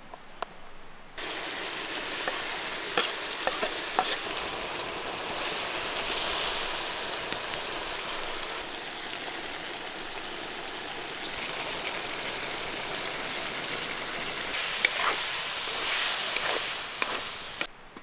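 Chicken pieces with raisins and fruit sizzling in a kazan over a wood fire: a steady, loud frying sizzle with a few sharp clicks of a utensil against the pot. The sizzle starts abruptly about a second in and stops abruptly just before the end.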